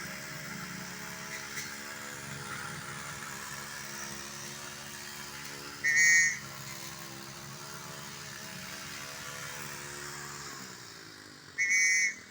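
A nearby engine idling steadily until it drops away about ten seconds in. Two short, loud, high-pitched tones sound, about six seconds apart.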